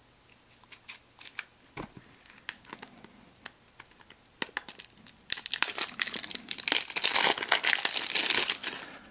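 Clear plastic shrink wrap on a deck of cards being slit with a knife and peeled off. A few light clicks and scrapes at first, then dense crinkling of the plastic from about five seconds in, loudest near the end.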